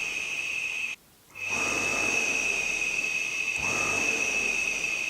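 Clothes-dryer electric motor (2800 RPM) running with a steady high whine over a rushing noise. The sound drops out abruptly for a split second about a second in, then carries on as before.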